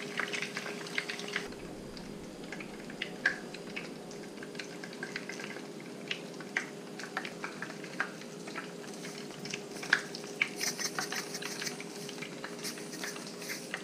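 Hot oil crackling and sizzling in a frying pan after battered fish has been pan-fried, with irregular pops and clicks throughout, under a faint steady hum.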